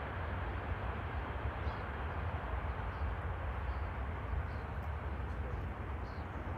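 Distant twin-jet airliner at takeoff thrust: a steady low rumble as it lifts off and climbs away.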